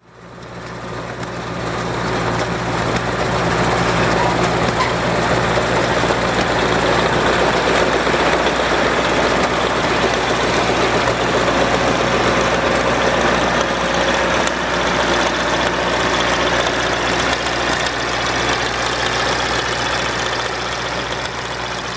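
John Deere 800 windrower's Chrysler 225 slant-six gasoline engine running steadily while swathing wheat, a low even hum under a broad mechanical clatter. The sound fades in over the first couple of seconds.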